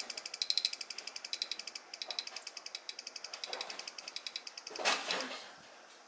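Large brown cicada (aburazemi) shrilling: a fast, high-pitched train of pulses that fades away and stops a little before five seconds in, followed by a brief rustling burst, the loudest moment of the stretch.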